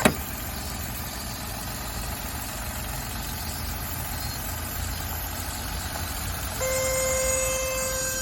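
Car engine idling with an abnormal steady whining tone from the engine bay. A sharp click right at the start cuts the whine off, and it comes back about six and a half seconds in, slightly louder.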